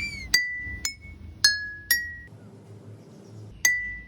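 Glassware struck five times, each a sharp clink that rings on briefly, the pitch changing a little from strike to strike.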